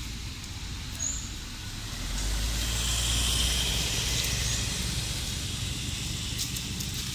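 A vehicle passing: a low rumble and hiss swell up about two seconds in and slowly fade. A few short high chirps sound now and then.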